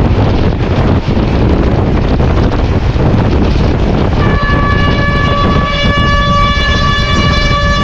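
Hitachi PHA-20 diesel locomotive running with a heavy rumble and wind buffeting the microphone; about four seconds in, a horn starts and holds one steady note.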